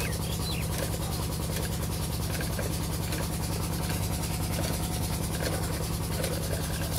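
Stationary Petter-type diesel engine running steadily with an even, low-pitched beat.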